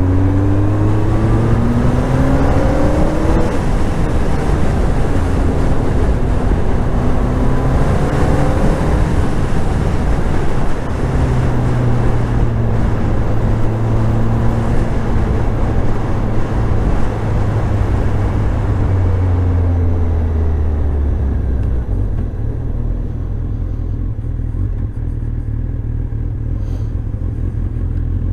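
Motorcycle engine running under way. It revs up through the gears in the first few seconds, holds a steady note while cruising in the middle, then eases off and slows down through the last third.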